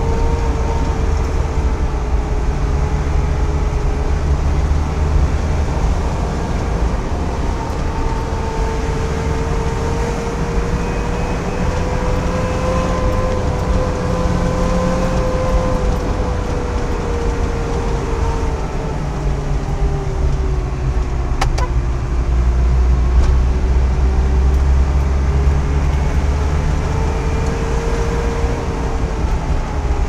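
Engine and road noise heard from inside a vehicle's cabin while driving: a steady low rumble under a humming engine tone that slowly rises and falls, with one sharp click about two-thirds of the way through.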